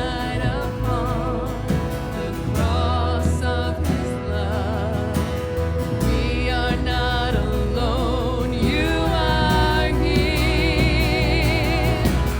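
Live worship band playing with a vocalist singing, long notes held with vibrato over a steady bass.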